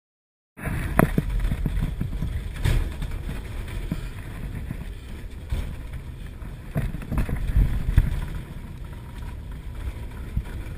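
Road and engine rumble heard from inside the rear compartment of a moving van, with several sharp knocks and rattles as it goes over bumps. It starts abruptly about half a second in.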